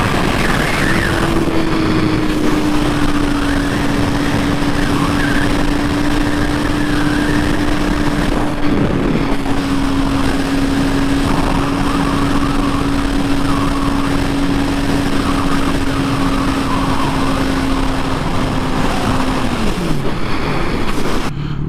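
Heavy wind rush on the mic of a Kawasaki ZX-10R sport bike at highway speed, with the engine holding one steady note beneath it. Near the end the engine note falls away as the bike slows.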